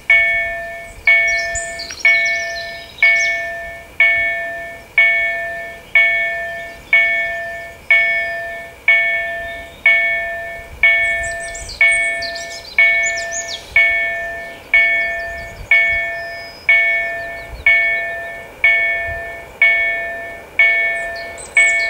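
Railway level-crossing warning bell ringing about once a second, each stroke dying away before the next, as a train approaches. Birds chirp now and then.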